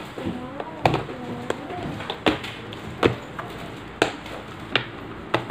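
Hard clear plastic parts box being handled on a desk: a series of sharp clicks and knocks, about seven, roughly one every second or less.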